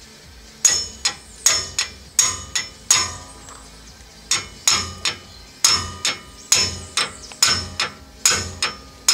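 A hammer striking metal about twenty times with a ringing clang, often in quick pairs and with a short pause partway through, to crack a tight lower ball joint free of the Daihatsu Rocky's control arm.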